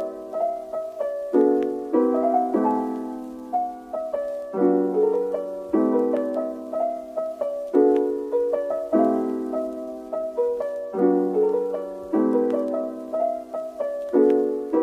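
Background music played on piano: chords struck every second or two, each ringing out and fading before the next, with a few higher notes over them.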